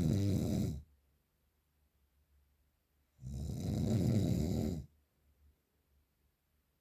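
A person snoring heavily: one snore trails off just under a second in, and another loud snore comes about three seconds in and lasts nearly two seconds, with near-quiet breathing pauses between.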